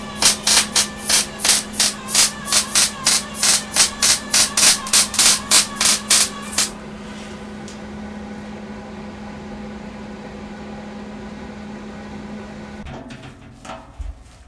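Electric arc welding on a metal keg: the arc crackles in regular pulses, about three a second, and stops about six and a half seconds in. A steady hum carries on until near the end.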